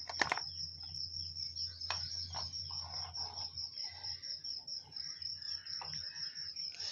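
Steady high-pitched chirring background noise over a low hum, with a sharp click just after the start and a few faint scattered ticks.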